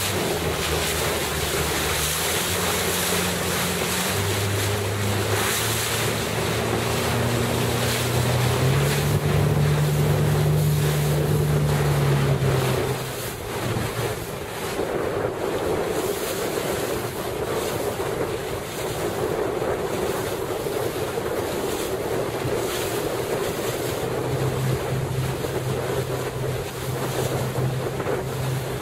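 Wind buffeting the microphone over rushing water, with a boat engine running underneath. The engine's pitch steps up and down, is loudest a little before the middle, drops out about halfway through and comes back near the end.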